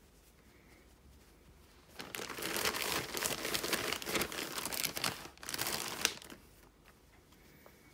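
Plastic postal satchel crinkling and rustling as hands open and handle it, starting about two seconds in and lasting about four seconds.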